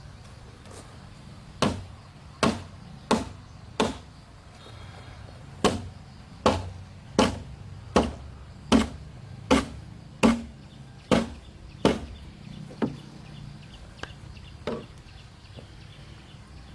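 A hand tool striking wood in a steady rhythm, about one blow every three-quarters of a second. Four blows, a short pause, then about ten more, the last few weaker.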